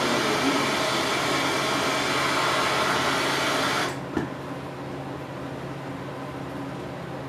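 MAP gas torch burning with a steady hiss as it heats a cable-end fitting to melt its solder, then shut off abruptly about four seconds in, leaving a faint steady hum.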